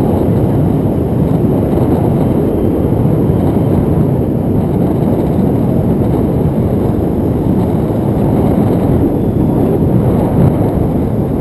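Wind rushing over an action camera's microphone in flight on a tandem paraglider: a loud, steady, low rumble.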